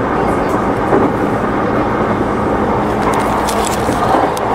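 Yokohama Line local train running, heard inside the carriage: a loud, steady rumble of wheels on rail with a low steady hum under it, and a few faint ticks about three to four seconds in.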